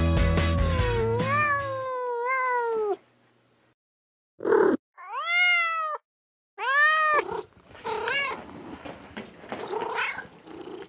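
Robotic toy cats meowing. A long, falling meow at the start, then after a short silence a brief cry and two loud meows that rise and fall, then fainter meows.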